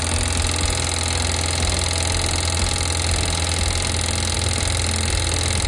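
Facet electric fuel pump of a DIY diesel fuel polisher running with a steady low hum, drawing diesel from the boat's tanks through a Racor filter.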